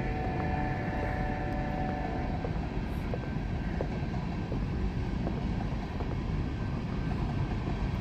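Long freight train rolling past, a steady low rumble, with a faint steady whine over it that fades out about two and a half seconds in.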